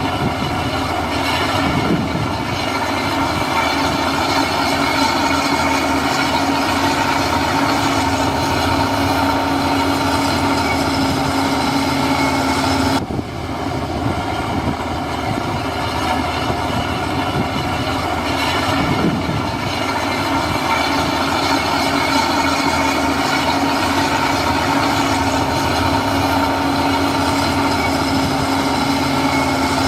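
Heavy earthmoving machinery's diesel engine running steadily under load, with a constant droning tone over a dense mechanical noise. The sound breaks off abruptly about 13 seconds in and starts again at once.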